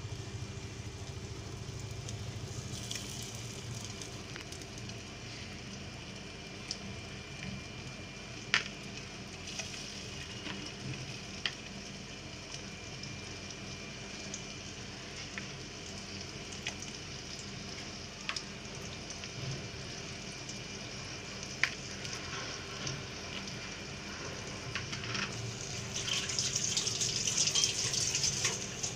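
Egg-coated chicken kebab patties shallow-frying in oil in a nonstick pan: a steady quiet sizzle with a few sharp clicks scattered through it. Near the end the sizzling grows louder and brighter as a fresh patty goes into the hot oil.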